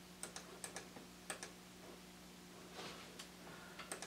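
Computer mouse buttons clicking: several sharp clicks, mostly in quick double-click pairs, with a soft scrape about three seconds in, over a faint steady hum.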